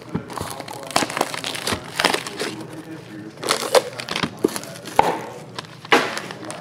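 Clear plastic wrap and tape crinkling and tearing as they are pulled off a sealed cardboard trading-card box, with a few sharp knocks as the box is opened and handled.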